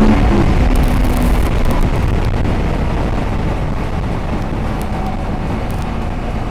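Wind noise over the microphone of a motorcycle riding at about 100 km/h on an expressway, with the CFMOTO MT650's engine running low beneath it. The level eases off slowly as the bike slows.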